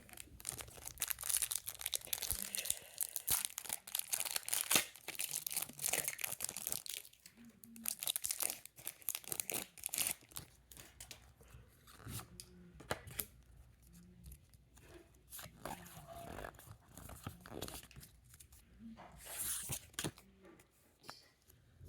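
Foil wrapper of a Pokémon trading-card booster pack being torn open and crinkled, then scattered soft clicks and rustles as the cards are handled and flipped through.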